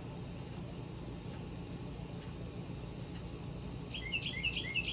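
A songbird sings a fast run of repeated chirps near the end, over a steady low rumble.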